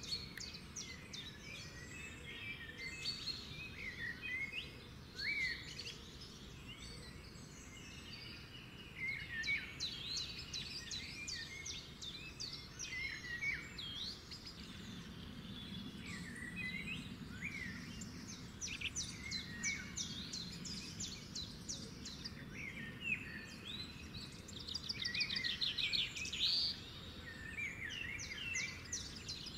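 Small birds chirping and singing together, a dense mix of short calls and whistles, with quick trills near the end.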